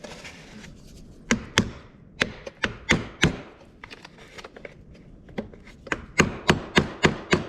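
Irregular sharp taps and knocks of hand-tool work on the ATV's steering shaft mounting: a handful of strikes about a second in, then a quicker run of about eight in the last two seconds.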